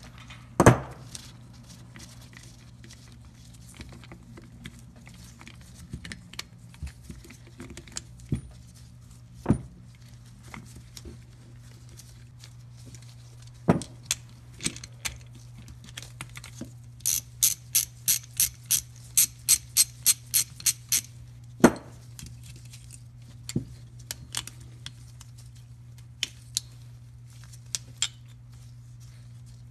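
Ratchet wrench clicking in a run of about three or four clicks a second while nuts are backed off a starter solenoid's cap, with scattered clinks of small metal parts being handled. A steady low hum runs underneath.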